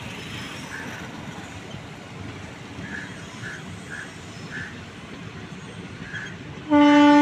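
Express train's locomotive approaching with a steady rumble, then one loud horn blast of about a second near the end.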